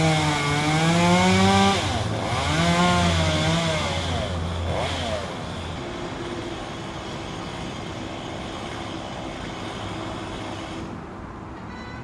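Gasoline chainsaw revving hard, its pitch climbing and dipping several times over the first few seconds, then dropping back to a lower steady idle that quietens near the end.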